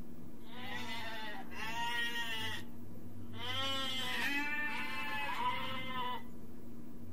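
Goat bleating: four wavering bleats in two pairs, each about a second long.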